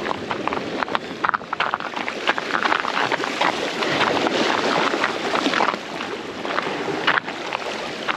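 Sea water washing and splashing against the jetty rocks, with wind on the microphone.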